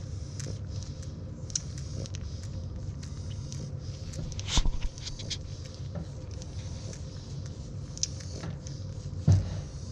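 Newborn French Bulldog puppies suckling at their mother's teats: a run of small wet smacking and sucking clicks over a steady low hum. Two louder bumps stand out, one about four and a half seconds in and one near the end.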